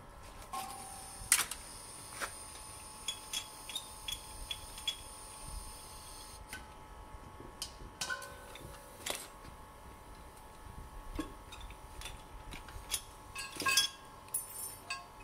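Scattered light clicks, clinks and knocks of metal fittings as gas cylinders, regulators and hoses are handled. The sharpest knock comes about a second in and a cluster comes near the end, over a faint steady whine.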